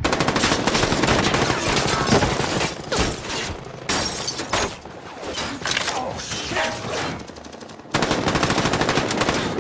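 Sustained automatic fire from a belt-fed light machine gun in long rapid bursts. Through the middle the shots come more sparsely, mixed with bullet impacts and car glass shattering. Dense rapid fire starts again abruptly near the end.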